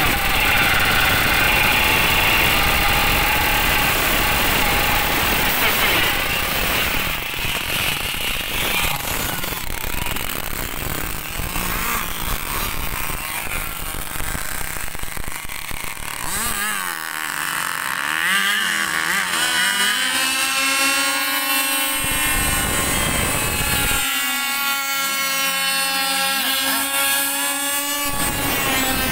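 Two-stroke Zenoah gas engine of an RC boat running at speed. About two-thirds of the way in its pitch swings up and down as the throttle is worked.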